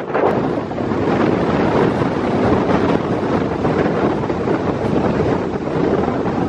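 Wind buffeting the camera's microphone: a loud, steady rushing noise that flutters in strength.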